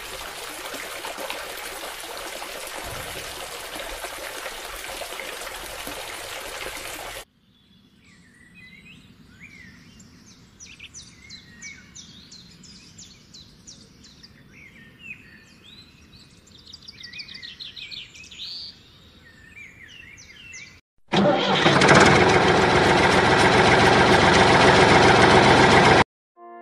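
A thin stream of water pouring from a drinking-straw spout into a plastic bottle, a steady rush for about seven seconds. Then birds chirp over quiet outdoor background, and about twenty seconds in a loud, steady rushing noise starts and runs for about five seconds before cutting off.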